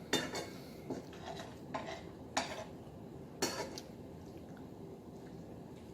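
Dishes and cutlery clinking: four or five separate sharp clinks, about a second apart, in the first three and a half seconds.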